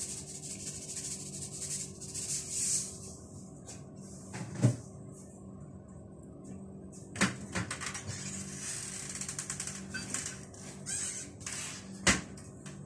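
Salt rattling out of a plastic shaker for the first couple of seconds, then three sharp knocks spaced a few seconds apart, like things being set down in a kitchen, over a faint steady hum.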